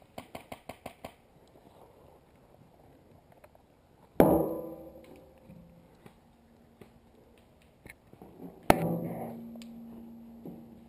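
Two loud sharp knocks against a hollow barrel, about four and a half seconds apart, each ringing on and fading over a second or two. A quick run of about eight light clicks comes in the first second.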